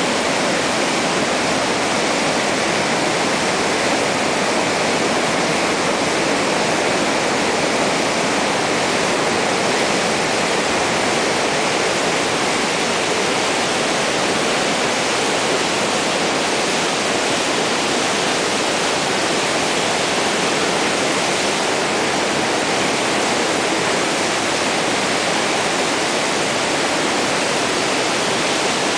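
Roar of a river in flood: a loud, unbroken rush of fast, churning brown water pouring through rapids and around rocks, steady throughout.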